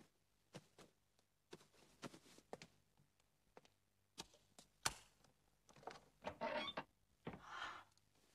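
A few faint wooden knocks and clicks, the loudest about five seconds in, then two short bursts of rustling near the end.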